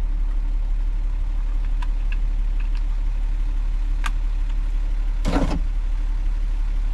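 Car engine idling, a steady low drone, most likely the Lexus RX300's 3.0-litre V6, with a short burst of noise about five seconds in.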